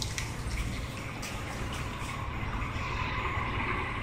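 Steady low rumble and hiss of truck engines idling in the background, with a few faint clicks.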